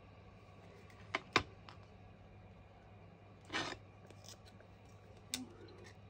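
A utility knife and a small wooden staircase piece being handled on a cutting mat: two sharp clicks a little after a second in, a short scrape a little past halfway as the blade goes to the wood, and a faint tick near the end.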